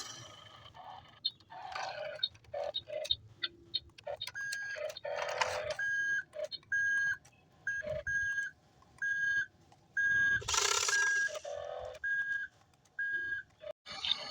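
Reversing alarm beeping: a high electronic beep repeating at a steady pace, a little faster than once a second, starting about four seconds in and stopping near the end. Short swishes and clicks come and go alongside it.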